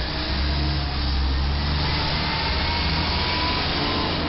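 Heavy diesel vehicle engine rumbling as large vehicles move through a street intersection, with a faint engine whine slowly rising in pitch.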